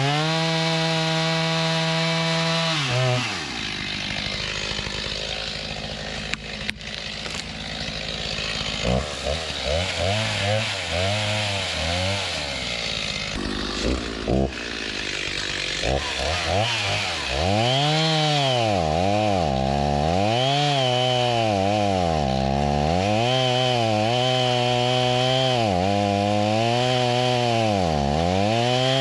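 Stihl MS290 two-stroke chainsaw running at high revs, its engine note dropping and recovering again and again, about every one to two seconds, as the chain is loaded in wood and eased off. For a few seconds after the start it runs lower and rougher.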